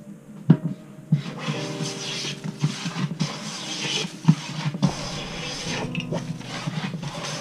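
Metal hand plane shaving a wooden board, with repeated strokes heard as a rough rasping hiss. Sharp knocks come among the strokes, the loudest about half a second in.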